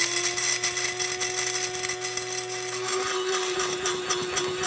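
Electric blade spice grinder running steadily, grinding black peppercorns: a motor hum held at one pitch over a dense rattling hiss from the crushing peppercorns.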